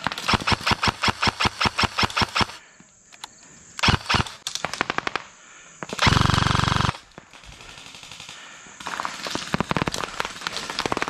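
Airsoft guns firing in the middle of a skirmish: a fast string of shots, about seven a second, for the first two and a half seconds, then shorter strings. Around the middle there is one loud, unbroken burst just under a second long.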